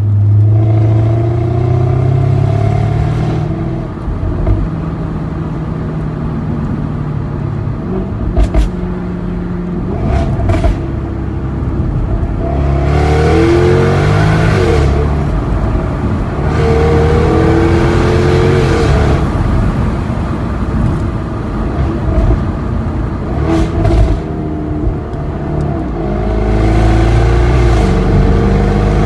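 2010 Jaguar XKR's supercharged V8, running through an XKR-S exhaust with a custom tune, rising in pitch under throttle several times. In between come a few sharp exhaust pops and crackles when the throttle closes.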